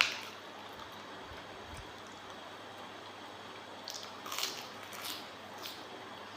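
A person eating raw seafood: a sharp click at the start, then wet chewing with a few short crunches and clicks between about four and six seconds in.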